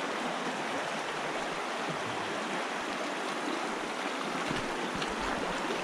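Fast-flowing creek water rushing steadily.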